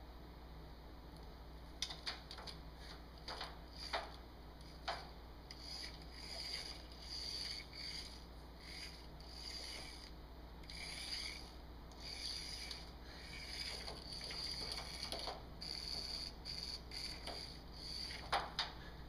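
A barred owl's talons and beak scraping and rubbing at a caught remote-controlled toy mouse on newspaper, with a few sharp clicks. The loudest clicks come a few seconds in and again near the end.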